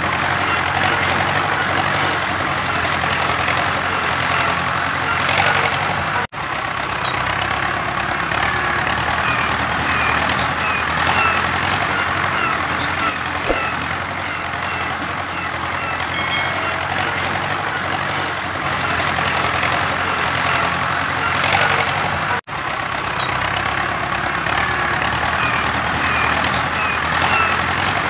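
Steady diesel-tractor engine sound, running without let-up, played for a toy tractor pulling a loaded trolley. It cuts out for an instant twice, about six and twenty-two seconds in.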